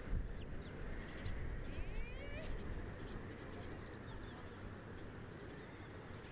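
Strong wind buffeting the microphone in a steady low rumble, with bird calls over it: a few short chirps in the first second and a half and a rising call about two seconds in.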